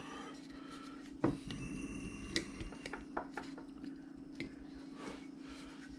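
Carving knife cutting into a wood carving: scattered small clicks and light scrapes, over a steady low hum.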